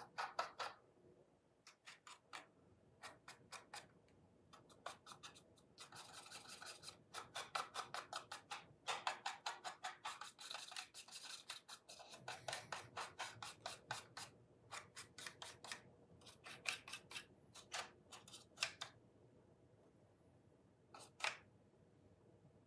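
Stiff paintbrush dry-brushing a scale model engine: fast, faint scratchy bristle strokes, several a second, in runs with short pauses and a longer lull near the end.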